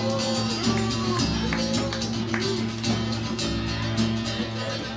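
Recorded music led by guitar over a steady bass line, with sustained notes that bend in pitch.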